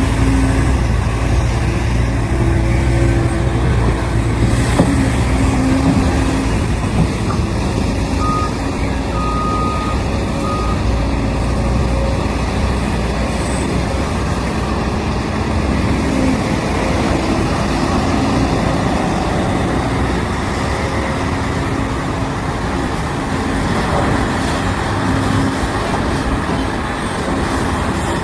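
Heavy diesel mining equipment, a large crawler excavator working alongside haul trucks, running steadily with a deep engine drone. Brief beeping about a third of the way in.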